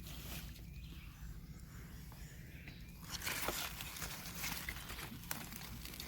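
Rustling and crackling of beet leaves and soil as beets are pulled from a growing container, busier from about halfway through, over a low steady rumble.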